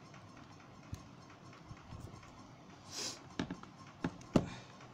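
Smartphone handled by hand on a workbench: a brief rustling hiss about three seconds in, then three sharp clicks and knocks as the phone is picked up, the last the loudest.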